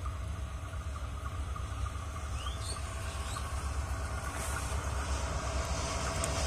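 Diesel locomotive running as it approaches on the adjacent track: a steady low rumble with a faint hum above it, growing gradually louder.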